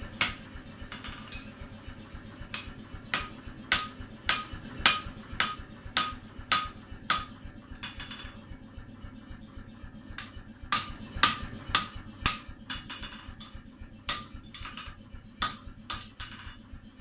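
Hand hammer striking red-hot steel on an anvil, about two blows a second in runs broken by short pauses, each blow with a brief metallic ring.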